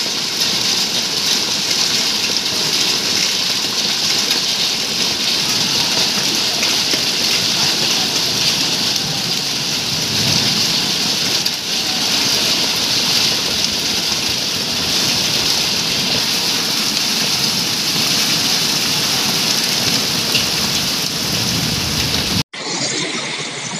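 Heavy rain mixed with hailstones pelting a wet ground surface: a dense, steady hiss of impacts. It breaks off abruptly near the end, where a different recording cuts in.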